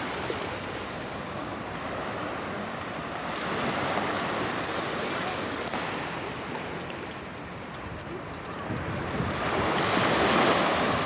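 Sea waves breaking and washing ashore, with wind. The surge swells about four seconds in and again, loudest, near the end.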